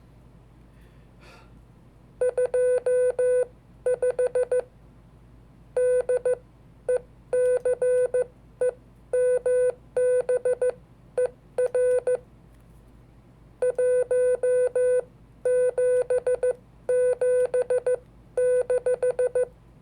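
Morse code (CW): a single mid-pitched tone keyed on and off in dots and dashes, sent in groups with pauses between, beginning about two seconds in. The groups spell out a date (day, month, year).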